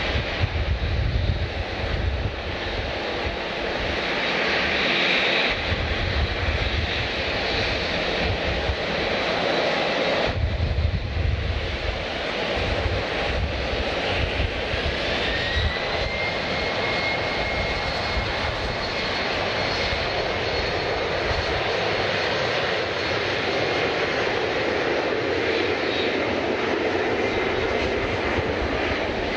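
Passenger airliner's engines running with a loud, steady roar; about halfway through a high whine rises in pitch, then holds steady.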